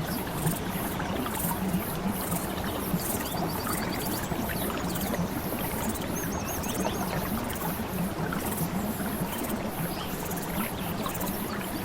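Steady rushing of flowing water, like a stream, with a few short runs of high, rapidly repeated chirps about three and six seconds in.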